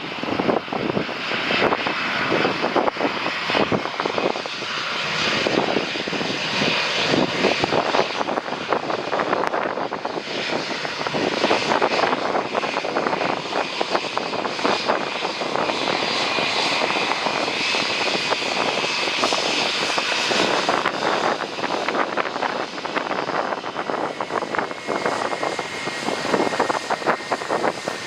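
Jet airliner engines running steadily as an aircraft passes on landing approach, with gusting wind buffeting the microphone. A faint, steady high whine comes in during the second half.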